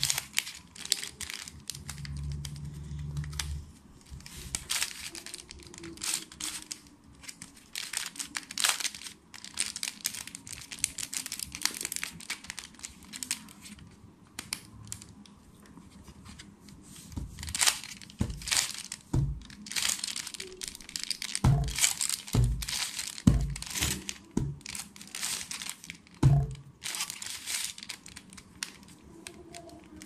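Plastic 3x3 Rubik's cube being turned by hand: a quick, irregular run of clicking and clacking layer turns, with a few low knocks in the second half.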